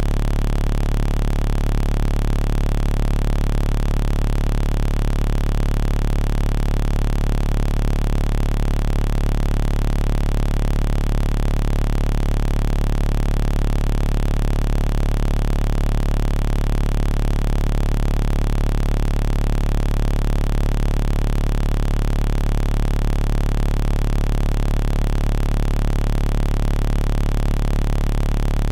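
A loud, steady, unchanging low electronic hum or buzz, with no breaks.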